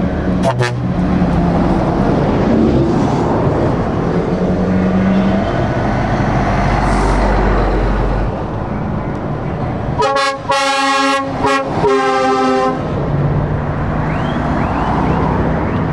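Heavy Scania trucks in a convoy driving past one after another, their diesel engines and tyres making a steady low drone. About ten seconds in, a truck's multi-tone horn sounds in several blasts over roughly two and a half seconds.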